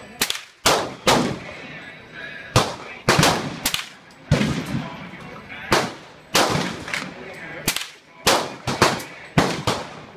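Rifle shots, a .22 rifle among them: about fifteen sharp cracks at uneven spacing, some in quick pairs and triples, each with a short echo tailing off.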